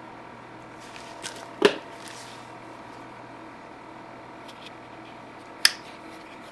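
A SOG SOGzilla GSP-01 lockback folding knife being handled: a knock as it is lifted off a wooden tabletop, then near the end one sharp click as the stainless blade is swung open and the lockback snaps into place.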